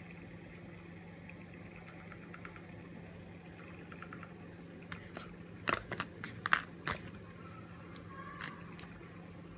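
Quiet handling of yarn and small tools: a quick cluster of sharp clicks and taps around the middle, then a small snip near the end as little scissors trim a yarn tail.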